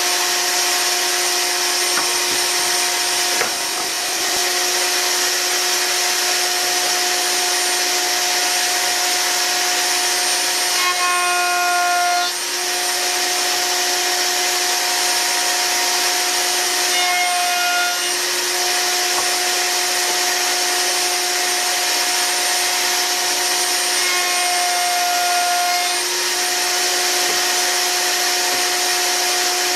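Wood router running steadily at high speed while chamfering the edges of hardwood feet. Its pitch sags briefly about three times as the bit cuts, over a steady hiss.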